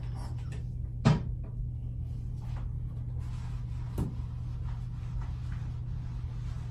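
A plastic bottle of tanning mousse set down on a plastic toilet lid with a single sharp knock about a second in, then a lighter tap about three seconds later. A tanning mitt rubs faintly on bare skin over a steady low hum.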